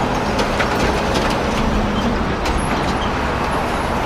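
Road traffic with a steady low engine rumble from a heavy vehicle.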